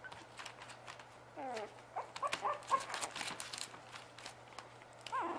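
Young bugg puppies (Boston terrier–pug crosses) whimpering in short high squeaks: one falling call about a second and a half in, a little cluster of them a second later, and another just before the end. Scratchy rustling of small paws on newspaper and blanket runs underneath.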